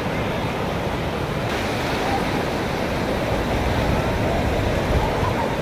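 Ocean surf breaking and washing up the sand, a steady rush, with wind rumbling on the microphone.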